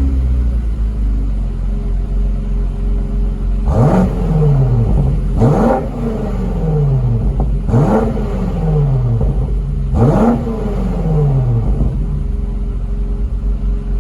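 A BMW M SUV's twin-turbo engine, stationary and heard from outside, idling and then blipped four times: each rev climbs sharply and drops back over a second or so before it settles to idle again.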